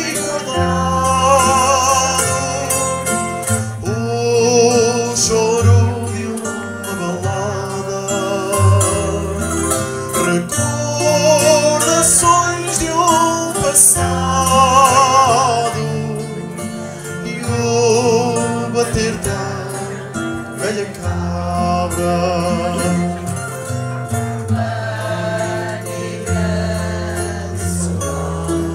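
Live fado ballad: voices singing with vibrato over a Portuguese guitar and a classical guitar (viola) accompaniment.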